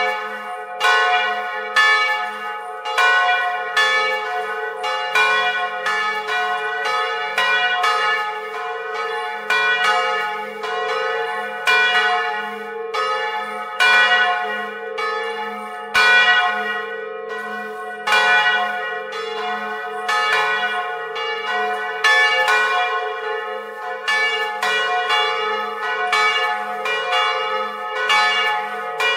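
Two bronze church bells, one cast in 1772, swinging in full peal and struck by their original clappers, heard close up inside the bell chamber. There are about two strikes a second in an uneven, alternating pattern, over a steady ringing hum that never dies away between strokes.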